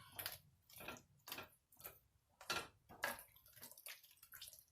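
Utensil stirring sticky, sauce-coated chicken pieces in a dish, a faint run of wet clicks and scrapes about twice a second.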